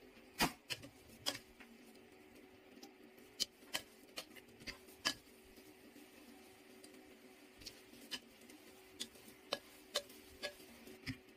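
Plastic rice paddle knocking and scraping against a rice cooker's inner pot while turning over cooked rice with potatoes and meat: a scatter of sharp clicks, the loudest about half a second in, over a faint steady hum.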